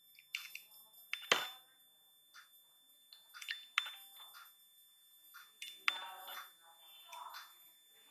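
Handling noise from a plastic hair clipper turned over in the hand: a few scattered clicks and light knocks, the loudest a bit over a second in. The clipper is switched off.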